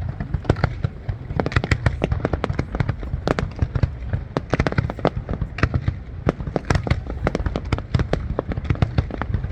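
Fireworks display: a dense, irregular barrage of sharp bangs and crackling bursts, several a second, over a continuous low rumble.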